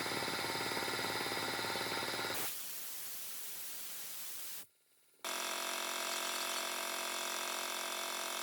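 Rewound three-phase electric motor running steadily with an even, many-toned hum. About two and a half seconds in it gives way to a stretch of hiss, then after a brief drop to near silence the steady hum returns.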